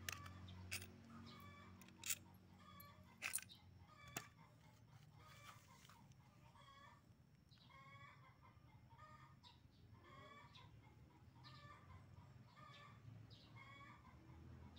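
Faint chickens clucking in the background, short calls about once a second. A few sharp clicks of small metal parts being handled come in the first four seconds.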